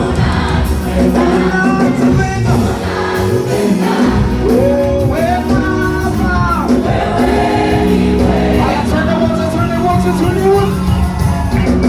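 Choir singing a gospel song over steady instrumental backing with held low notes.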